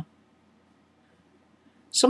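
Near silence: room tone, with speech starting again right at the end.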